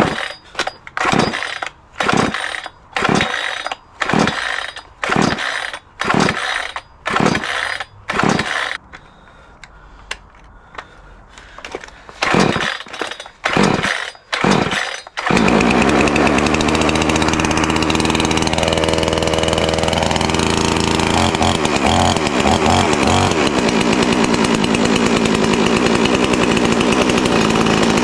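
Pinkway 63cc two-stroke chainsaw being pull-started with the choke pulled out: about a dozen yanks of the starter cord, each a short whirr roughly a second apart, with a pause after the first nine. About fifteen seconds in the engine catches and keeps running steadily, its pitch briefly dipping and recovering a few seconds later.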